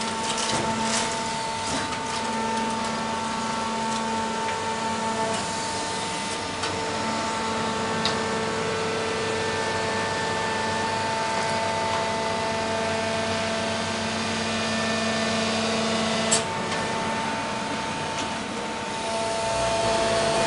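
Leopard baler running steadily with a continuous mechanical hum and several steady tones, and a single sharp click about 16 seconds in.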